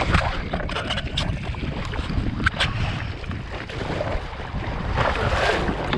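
Wind buffeting the microphone and water rushing and splashing against a kayak's hull as it is towed at speed by a hooked blue marlin, with scattered sharp splashes and knocks.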